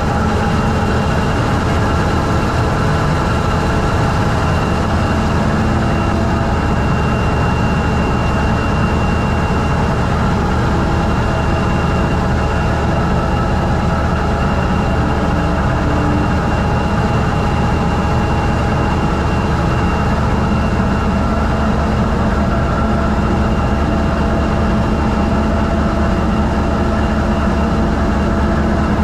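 Engine room of a diesel-electric locomotive with its 20-cylinder MTU 20V4000 prime mover and auxiliaries running: a loud, steady low drone with a faint steady high whine over it.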